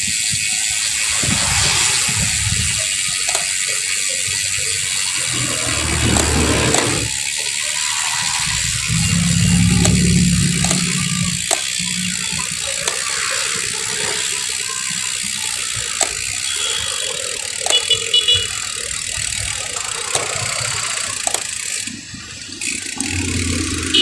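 Wind rushing over a handlebar-mounted phone's microphone while riding a bicycle through street traffic. Motorcycle and other vehicle engines run close by, loudest about ten seconds in, with scattered light clicks and rattles.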